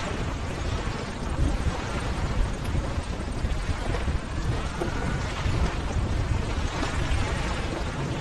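Ocean waves breaking, a steady rumble and hiss of surf without a break.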